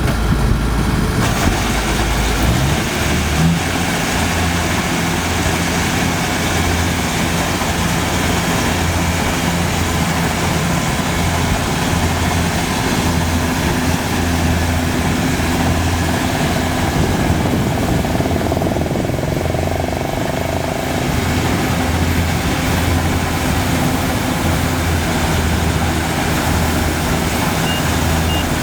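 Kubota DC70 combine harvester's diesel engine running steadily under load. A few short high beeps come near the end.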